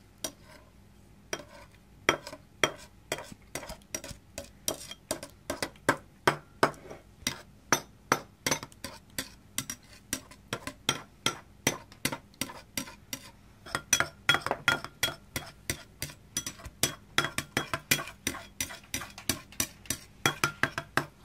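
A utensil chopping set jelly finely in a ceramic bowl, clicking against the bowl's bottom in a steady run of sharp taps, about three a second.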